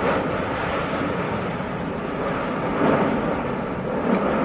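Lava pouring from the breached main cone of the Cumbre Vieja volcano: a steady, rushing rumble that swells briefly about three seconds in and again near the end.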